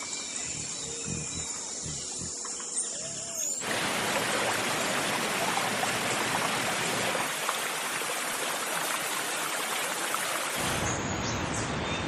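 A steady rushing hiss starts abruptly about three and a half seconds in and cuts off suddenly near the end. Before it come a few faint bird chirps.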